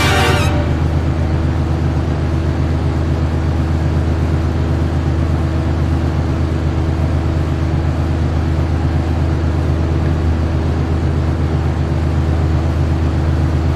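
A loud, steady low hum at an unchanging pitch, like a motor running, which cuts off at the end.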